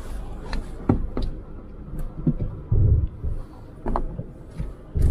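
Cab noise of a Force Gurkha 4x4 crawling over rough off-road ground: scattered knocks and rattles from the body, with a low rumble that swells about three seconds in and again at the end.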